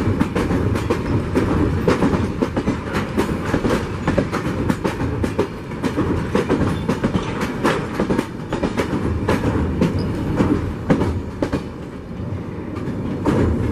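Passenger train coaches rolling past close by: a steady rumble with a continual, irregular clickety-clack of steel wheels over the track, easing a little near the end.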